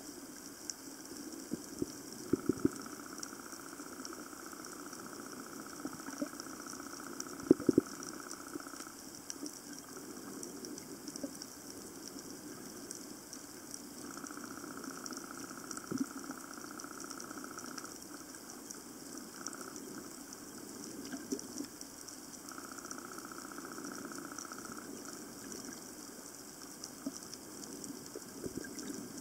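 Underwater ambience: a steady watery hiss with faint high crackling. A higher hum comes and goes three times, and a few sharp knocks stand out, the loudest about two and a half and seven and a half seconds in.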